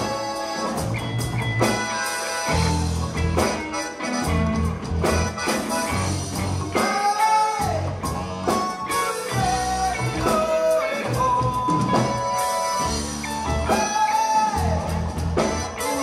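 A live band playing a song: a button accordion, an electric guitar, a drum kit and an upright double bass, with a steady beat and a melody that slides in pitch.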